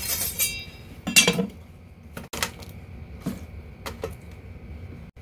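A few knocks and light clatters as a stainless steel tray and vegetables are handled and set on a wooden chopping board, starting with a short metallic clink that rings briefly. The loudest knock comes about a second in.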